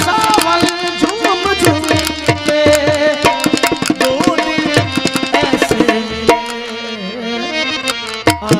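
Instrumental passage of a Rajasthani folk ghazal: hand-drum strokes under a melodic instrumental line. The drumming drops out about six seconds in, leaving a held low tone, and comes back near the end.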